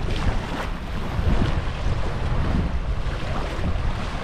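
Wind buffeting the microphone, with small waves washing up on a sandy shoreline.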